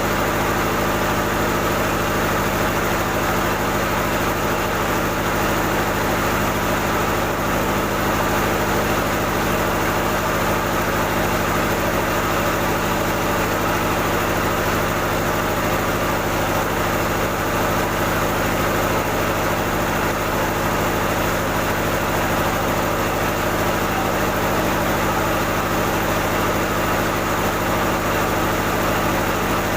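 Rice-mill machinery, an N50 polisher with a husker, running steadily: a constant machine hum with a hiss over it.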